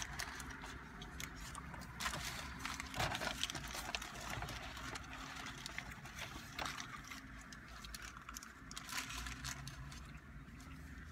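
Chewing and mouth sounds of people eating soft-shell tacos, with many short clicks and crinkles from the paper wrappers.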